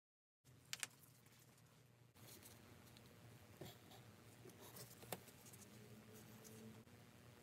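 Near silence: faint room tone with a few brief clicks and taps as gloved hands handle metal fittings on a model locomotive's buffer beam.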